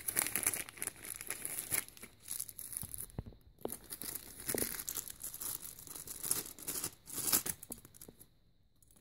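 Clear plastic zip-top bag crinkling and rustling in irregular bursts as it is handled and pulled open, stopping about a second before the end.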